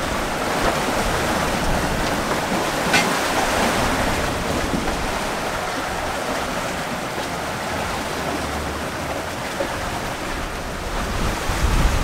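Ocean waves rushing and washing around a sailing yacht's hull as it sails through a rough sea, with wind on the microphone and a brief high squeak about three seconds in.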